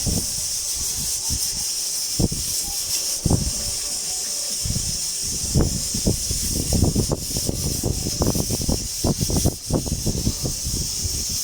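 Pressure cooker hissing steadily as it vents steam, with irregular low knocks and taps of kitchen work that come thicker in the second half.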